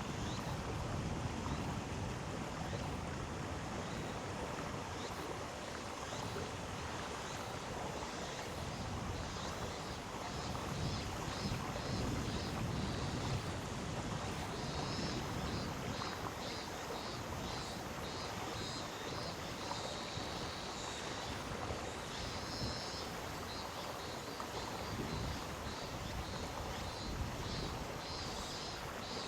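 Mountain stream rushing steadily over rocks in a gorge. From about nine seconds in, a faint series of repeated high chirps sounds above the water.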